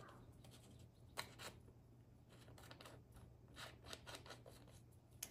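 Near silence with a few faint clicks and light rustling from hands handling a diamond painting funnel tray. The sharpest click comes about a second in, and a short cluster follows near the four-second mark.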